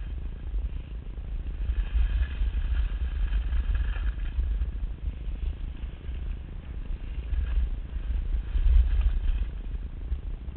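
Wind buffeting a moving skier's camera microphone, a low rumble that rises and falls, with the hiss and scrape of skis running over packed snow.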